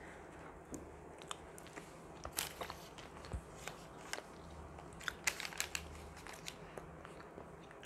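Close-miked chewing of a mouthful of Subway sandwich: scattered soft crunches and clicks from the mouth after a bite.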